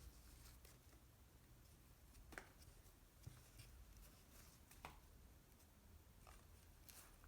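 Near silence with faint handling noise: a few soft clicks or taps, spaced a second or more apart.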